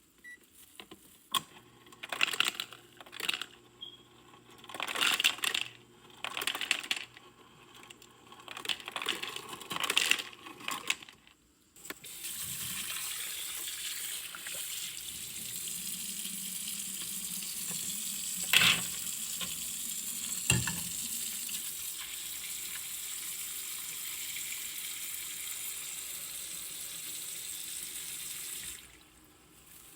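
Kitchen clatter of pots and utensils being handled, then a kitchen tap running steadily for about 17 seconds, with a couple of sharp knocks, until it is turned off near the end.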